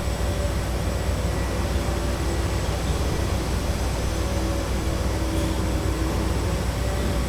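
Steady busy-street ambience: a constant low rumble of traffic with a faint, even machine hum over it, and no distinct knocks or bangs.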